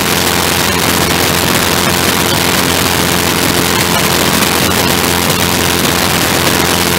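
Ground-effect craft's engine running steadily in flight, with an even hiss of rushing air over it.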